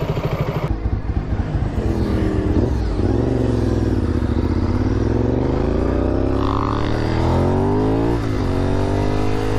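Motorcycle engine heard onboard from the rider's position: a fast, even idle pulse for under a second, then a sport bike running under way, its revs climbing, easing off and climbing again over several seconds, with a brief drop and pick-up at a gear change near the end.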